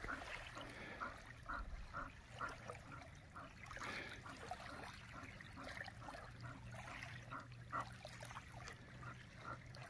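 Faint lake water lapping and trickling in the shallows, a string of small laps and splashes.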